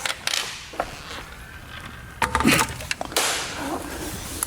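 Handling noises from a heavy car battery being set on a scale for weighing: a few knocks and clunks with scraping and rustling between them.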